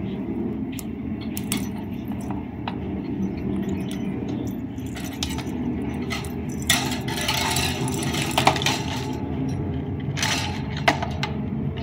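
A pet parakeet knocking a perforated plastic ball toy about on the cage floor, making bursts of light clinking and rattling, mostly about seven seconds in and again near ten seconds in. A steady low rumble runs underneath.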